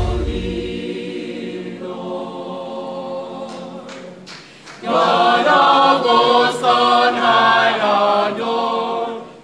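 A cappella choir of men and women singing sustained chords without instruments, soft at first and then swelling much louder about five seconds in.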